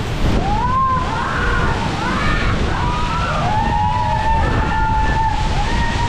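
Steady rush of a waterfall, with high-pitched voices over it in long, bending notes, one held for over a second near the end.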